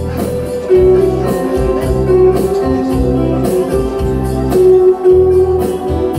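Acoustic guitar played solo, with chords and bass notes ringing under repeated strums.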